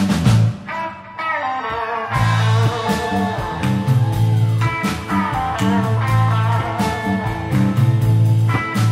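Electric blues band playing live, with electric guitars, bass guitar and drums. The band stops short about half a second in, leaving only guitar tones, and comes back in fully about two seconds in.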